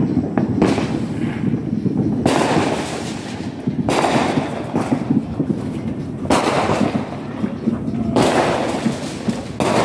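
Fireworks going off: about six sharp bursts a second or two apart, each dying away over about a second, over a steady low rumble.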